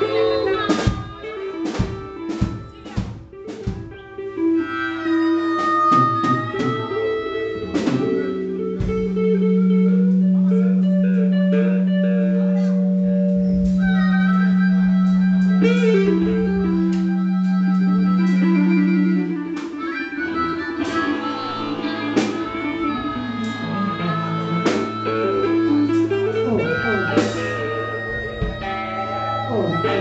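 Live blues-rock band playing, with electric guitar over drums. A long held low note comes in about eight seconds in and rings for about eleven seconds before the band carries on.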